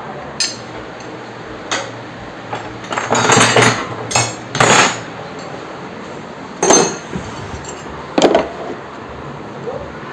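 Irregular metallic clinks and knocks of hand tools and engine parts: a cover and its bolts being fitted and tightened on a motorcycle engine. The densest run of clinks comes about midway.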